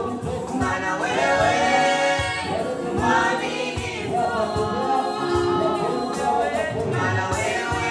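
A small group of men and women singing a Swahili gospel song together, with a Yamaha PSR-S750 electronic keyboard accompanying.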